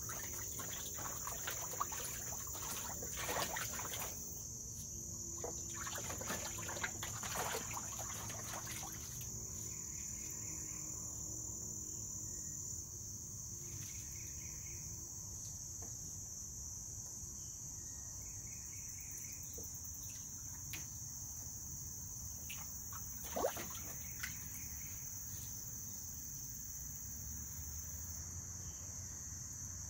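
A swimming mink splashing and paddling in a shallow plastic pool for the first several seconds, over a steady high buzz of insects. After that mostly the insect buzz remains, with one sharp tap a little past the middle.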